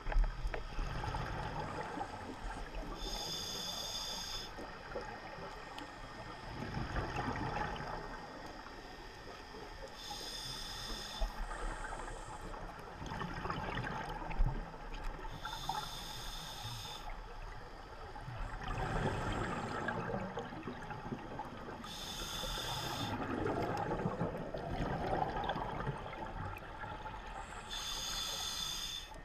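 Underwater scuba breathing through a diving regulator: five slow breaths, each a short hissing inhalation through the regulator followed a few seconds later by a gurgling rush of exhaled bubbles.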